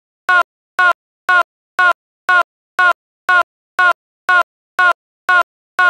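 A short electronic chirp repeated exactly the same about twice a second, with dead silence between each.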